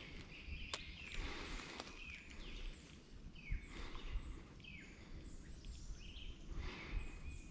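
A bird calling again and again in the woods: short notes that drop in pitch, roughly one a second, over a faint low rumble.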